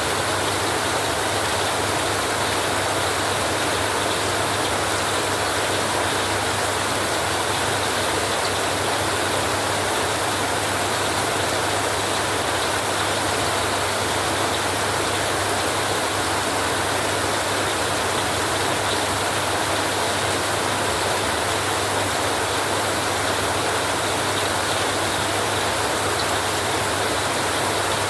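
Heavy rain drumming steadily on a metal roof, a dense unbroken hiss with a constant low rumble beneath it.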